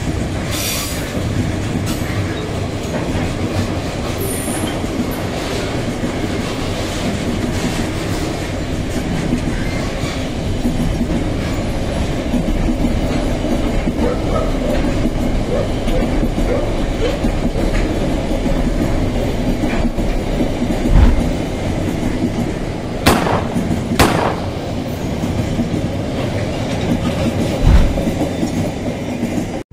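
Freight train wagons rolling past close by: a steady rumble and clatter of steel wheels on the rails, with a few louder sharp knocks in the last third.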